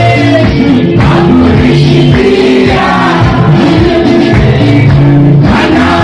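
Live gospel band playing a seben, the fast guitar-led Congolese dance section, with bass and drums driving a steady beat and voices singing over it.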